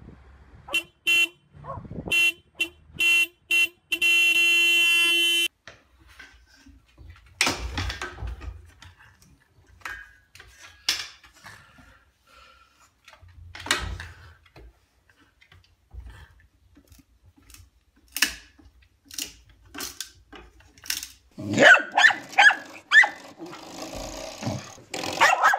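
Car horn honked in a run of short honks, then held in one long honk of about a second and a half. Scattered short knocks and noises follow, with a louder, busier stretch near the end.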